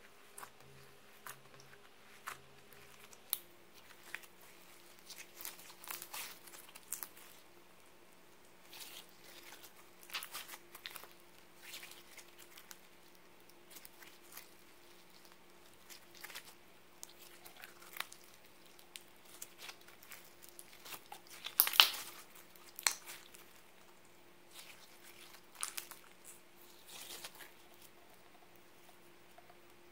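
Glitter-filled clear slime squeezed and stretched by hand, giving scattered sticky clicks and crackles, with the loudest cluster about 22 seconds in.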